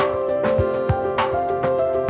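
Background music: a light melody of held notes over a steady beat of about two low thumps a second.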